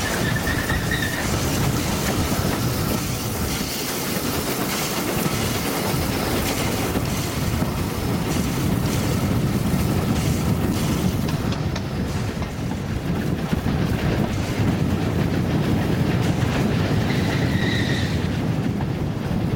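Steam train in motion behind the Brighton Terrier 0-6-0 tank engine 32678, heard from the leading carriage: a steady rumble and clatter of the wheels on the rails. A brief high tone sounds at the start and again near the end.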